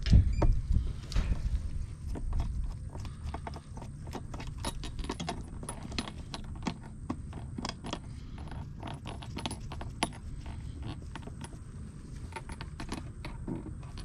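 Brass hose fittings and a vacuum hose being handled at a refrigeration vacuum pump's port: a string of small metallic clicks and taps over a low steady rumble.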